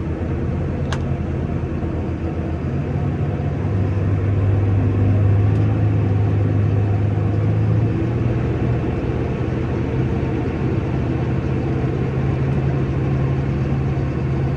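Tractor diesel engine running steadily under load, a little louder from about four seconds in, with a single light click about a second in.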